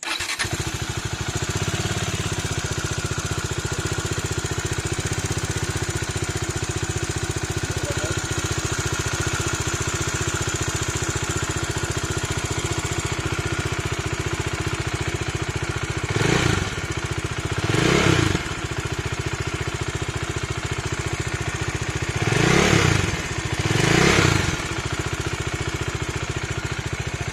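Bajaj Dominar 400's single-cylinder engine idling steadily. Throttle blips come twice in a row past the halfway point and twice more near the end, on a bike with an engine knocking/tappet noise that was traced to the camshaft and rocker arm.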